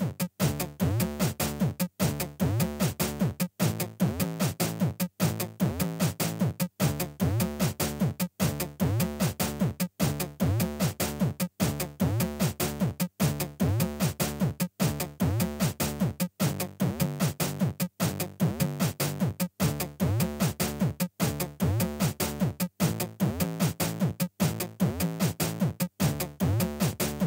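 Electronic background music from a Teenage Engineering Pocket Operator mini synth: a drum-machine beat with synth lines, a short loop that repeats about every second and a half with a brief break between repeats.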